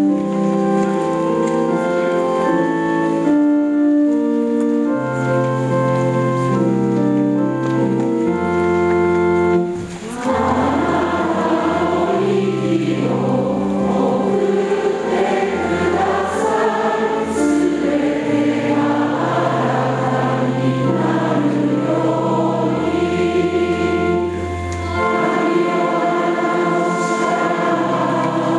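An organ plays held chords alone, then about ten seconds in a choir starts singing a hymn with the organ accompanying.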